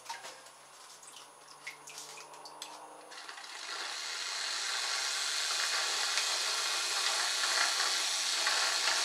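Small kit-built DC electric motor and propeller of a toy boat, held out of the water, start a steady whirring hiss about three seconds in. Before that, faint drips and small splashes as the boat is lifted from the bath.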